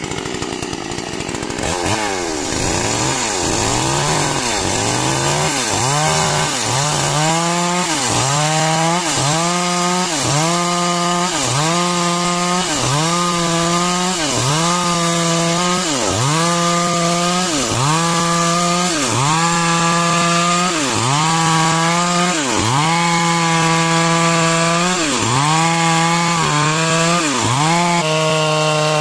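Chainsaw running at high revs while cutting wood, starting suddenly. Its engine pitch drops and recovers about once a second as the chain loads up in the cut.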